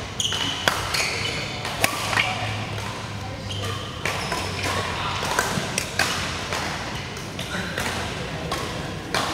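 Badminton rackets striking a shuttlecock, a sharp crack every second or so, mixed with short shoe squeaks on the court mat, all echoing in a large hall with voices murmuring in the background.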